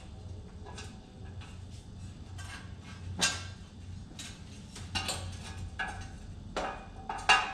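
Metal clinks and clanks from hands working on the stripped steering column of a John Deere 175 riding mower: light scattered taps with a few sharper knocks, the loudest about three seconds in and near the end, over a steady low hum.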